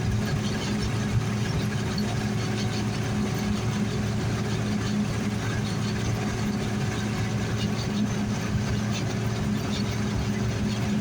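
John Deere combine running steadily while harvesting barley: an even engine drone with the noise of the threshing machinery over it.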